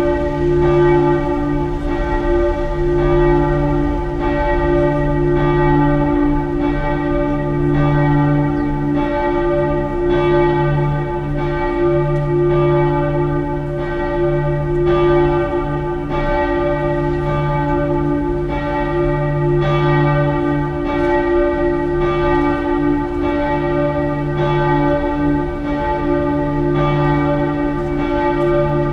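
The Frauenkirche Dresden's church bells ringing together in a continuous peal: overlapping strikes, each with a long ringing tone, several bells sounding at once.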